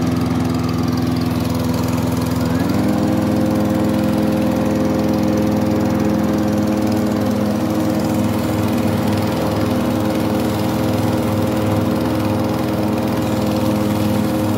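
Stihl walk-behind rotary lawn mower running steadily, its tone stepping up slightly in pitch about two and a half seconds in as it comes up to speed, then holding even.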